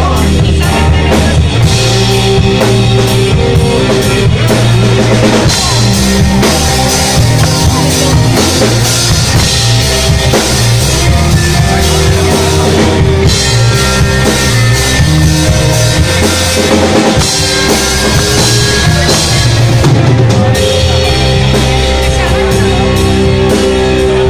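Instrumental stoner rock played live by a band on electric guitars and drums, loud and continuous, with the cymbals thinning out near the end.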